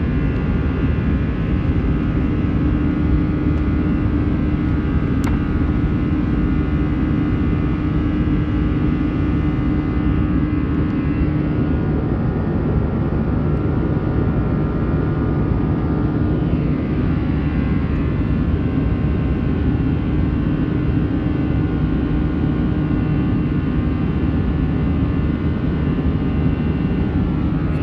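Boeing 737 jet engines at climb power after takeoff, heard inside the passenger cabin: a steady, loud rumble with a low hum and several steady whining tones over it.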